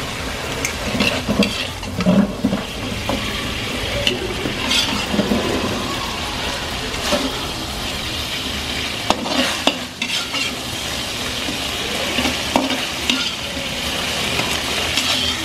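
Diced pork frying in oil in a wok, sizzling steadily, while a spatula scrapes and knocks against the pan as the pieces are stirred and lifted out.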